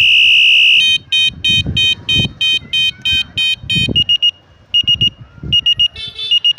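Electronic bicycle horn built into a handlebar headlight, sounding a steady high beep that changes a little under a second in to a beep pulsing about four times a second. About four seconds in it changes again, to short bursts of rapid beeps.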